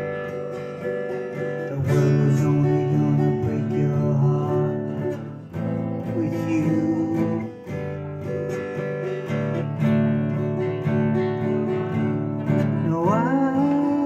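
Solo acoustic guitar strumming chords in a slow, steady rhythm. A man's singing voice comes in near the end.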